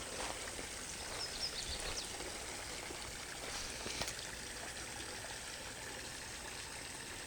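Creek water flowing steadily, with a few faint high chirps about a second in.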